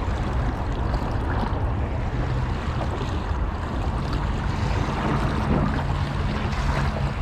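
Steady outdoor wind rumble on the microphone with moving water, joined from about halfway by a low steady hum.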